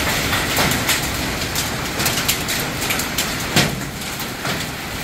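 Heavy rain falling with large hail, a steady hiss broken by irregular sharp knocks of hailstones striking; one louder knock comes about three and a half seconds in.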